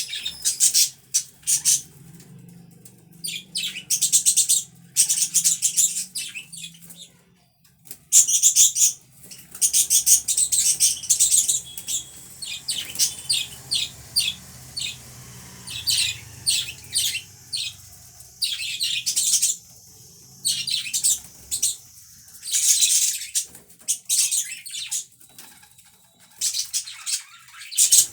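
Budgerigars chirping and chattering in quick high bursts of a second or two, with short pauses between.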